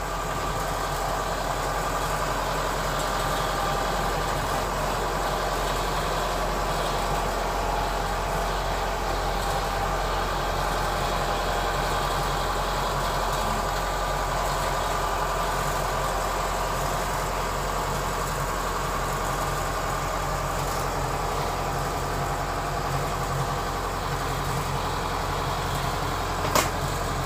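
Kubota DC-105X combine harvester's diesel engine running steadily at idle, with one sharp click near the end.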